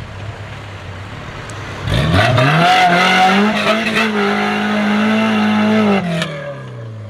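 Suzuki SJ (Samurai) 4x4's engine pulling through deep mud: a low steady note, then revving up hard about two seconds in, held high for about four seconds, and dropping back near the end.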